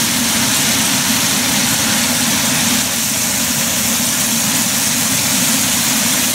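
Chicken and coriander frying in a pan on a gas stove, a steady sizzle over a steady low hum.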